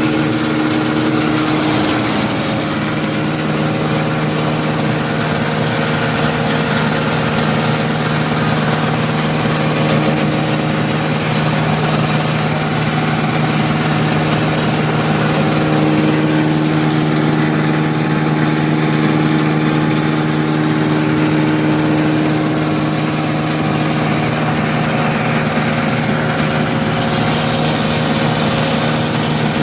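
Powder grinding mill running steadily while grinding coarse rice husks, a continuous machine hum with a strong low drone.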